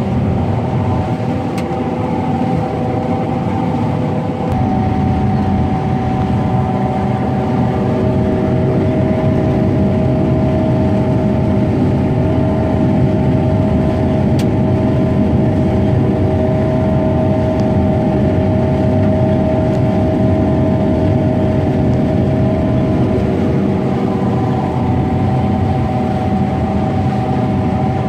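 Combine harvester running under load while harvesting soybeans, heard from inside its cab: a steady machine drone with several held whining tones, which shift slightly about four and a half seconds in.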